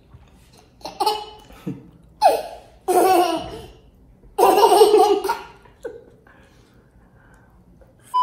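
A toddler laughing in four short bursts over the first five seconds or so.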